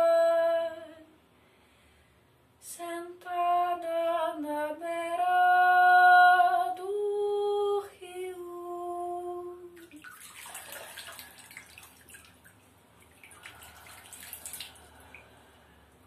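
A woman singing unaccompanied in long held notes, the song stopping briefly after the first note and ending about ten seconds in. Then water splashing and trickling, irregular and softer than the singing.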